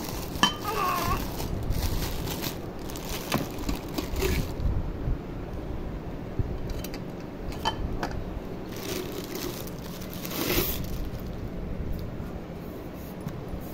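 Clear plastic wrapping crinkling and rustling as it is peeled off a stainless steel oil dispenser, with scattered sharp crackles and a louder rustle near the end.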